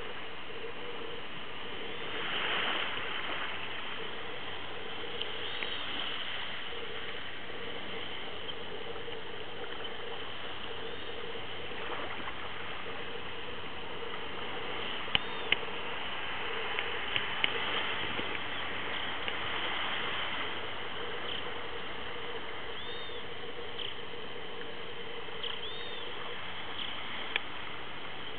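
Steady hiss of wind and sea with a faint, steady hum from the distant electric motor and propeller of a small RC Piper J3 floatplane in flight. A few short high squeaks come through, and a handful of sharp clicks come about halfway through.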